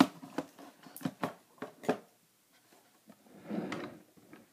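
Light clicks and taps of batteries and a small plastic battery box being handled, about half a dozen in the first two seconds, then a short soft rustle.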